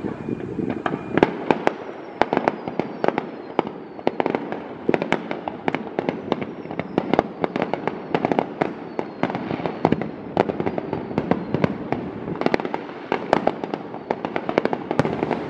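Fireworks display: a rapid, irregular string of sharp bangs and cracks, several a second, over a low rumble, with a few faint falling whistles.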